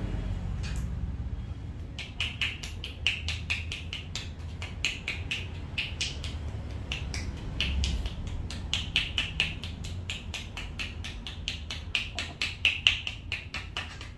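Rapid percussive massage: hands clapping or chopping on the body, about four to five sharp claps a second in quick runs, starting about two seconds in.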